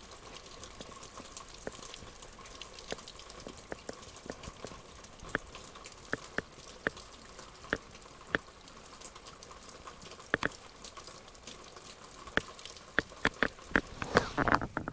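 Heavy rain through an open window: a steady hiss with irregular sharp drips of drops striking a surface, coming thicker near the end.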